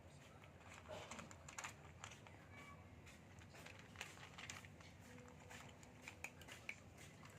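Near silence: quiet room tone with faint scattered clicks and taps.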